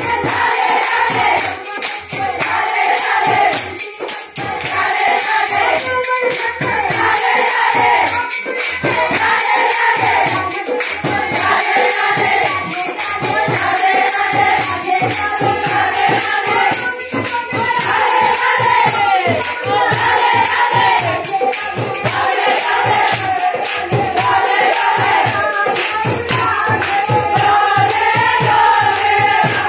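A group singing a Hindu devotional chant (kirtan), with a steady fast beat of jingling hand percussion running under the voices.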